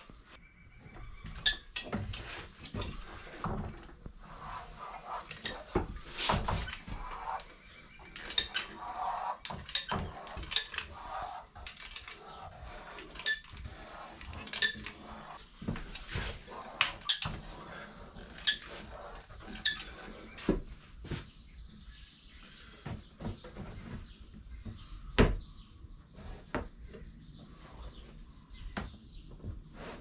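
Caulking gun clicking and clanking as its trigger is squeezed to lay beads of adhesive, with scattered knocks of handling. Many sharp clicks come at irregular intervals, one louder knock about five seconds before the end.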